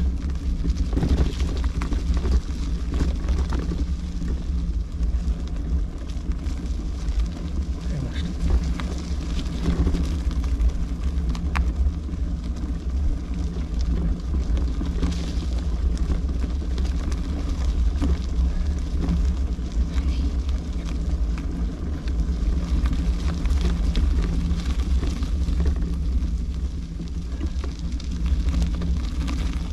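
Steady low rumble of wind buffeting the microphone, mixed with rolling noise, while riding an e-bike.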